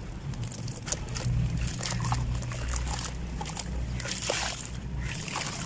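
Dried sand-cement chunks being crumbled by hand: irregular crisp crunches and crackles with grains trickling, over a steady low hum.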